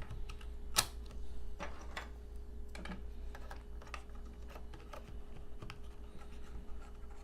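Scattered light clicks and taps of small computer parts being handled: memory modules being pressed into the Intel NUC's memory slots. A faint low hum runs underneath.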